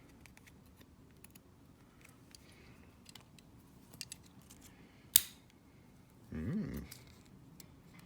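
Small metal clicks and taps from handling the parts of a pin tumbler cabinet lock, with one sharp click about five seconds in. A short vocal sound comes about a second later.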